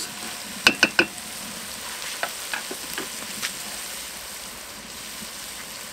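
Diced vegetables, tomato paste and red wine sizzling steadily in a cast-iron Dutch oven as the wine cooks down to almost nothing. About a second in come three sharp, ringing knocks, typical of a wooden spoon tapped against the pot, then a few lighter clicks.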